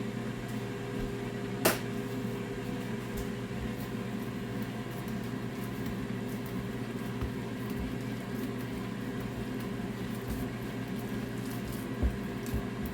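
Hands squishing and mashing a wet chickpea, onion, panko and egg mixture in a bowl, over a steady appliance hum. There is one sharp click about two seconds in.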